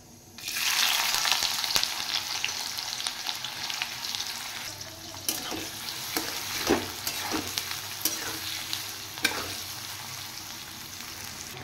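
Chopped onions drop into hot oil in a metal wok and sizzle loudly about half a second in. The sizzle eases off gradually as a spatula stirs them, with scraping strokes of the spatula against the pan.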